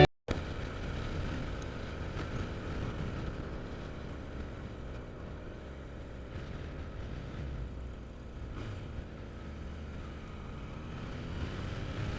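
Steady wind noise on the microphone of a moving vehicle, with low road and engine rumble underneath.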